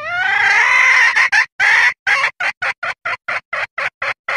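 Junglefowl hen calling: one long drawn-out note that rises at its start, then a run of short clucks at about four a second. It is played as a lure call, a hen's call said to ask for mating, to draw in males.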